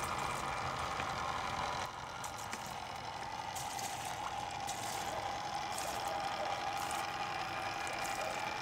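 Steady splashing and trickling of water falling from a flume onto a wooden water wheel, dipping slightly about two seconds in.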